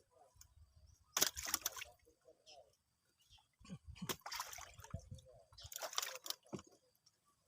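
Water splashing and sloshing in three bursts of about a second each, with quieter spells between.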